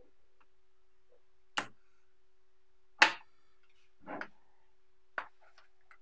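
5 mm magnetic balls snapping and clicking together as slabs of them are joined: four sharp clicks about a second apart, the loudest about three seconds in, over a faint steady hum.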